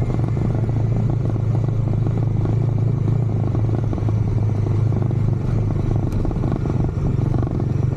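Bajaj Dominar 400 single-cylinder engine running steadily on its stock exhaust, with an even, unchanging beat and no revving.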